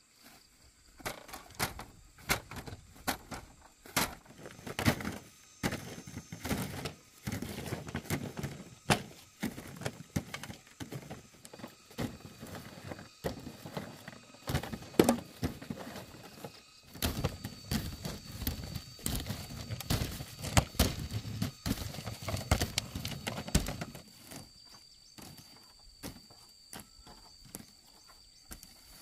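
Dried corn cobs knocking and clattering against one another as they are dropped by hand into a woven plastic sack, with the sack rustling; the knocks come thick and irregular, then thin out near the end.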